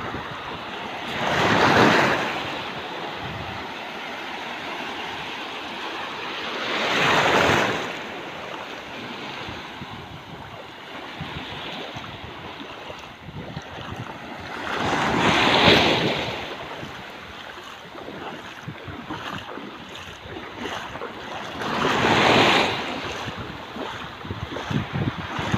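Small ocean waves breaking and washing up a sandy beach in shallow surf: a steady rushing wash that swells four times into a louder surge of foam, each lasting about two seconds.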